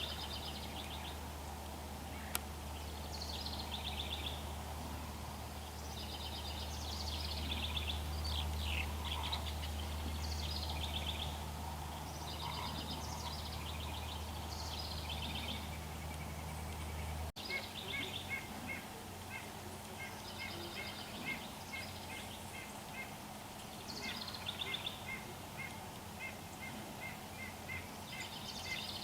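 Wild songbirds singing short, repeated trilled phrases, one every second or two, over a steady low rumble. Partway through the rumble stops abruptly and the birds continue with runs of quick, evenly spaced short notes.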